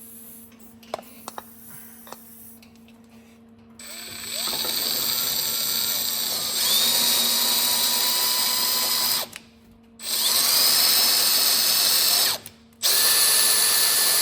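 Handheld electric power tool running in three bursts of a few seconds each, with a steady motor whine and short stops between them. A few light clicks come before it starts.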